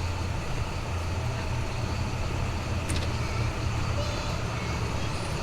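Steady low rumble of road traffic under a constant hiss, with a single sharp click about three seconds in.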